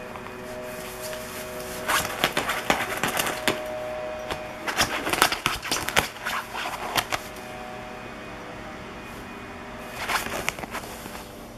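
Ferrets scrambling through a nylon cat-toy play tent: the fabric rustles and crinkles with rapid scratchy clicks, in three bursts with quieter pauses between them.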